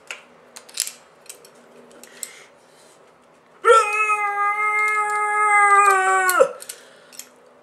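A few light clicks of metal tools being handled, then about three and a half seconds in a man lets out one long, high-pitched yell held on a single note for nearly three seconds, dropping slightly as it cuts off.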